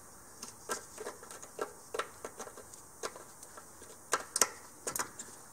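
Scattered light plastic clicks and taps as the ABS wheel speed sensor's electrical connector and wiring are handled and pushed into place, with a few sharper clicks about four seconds in.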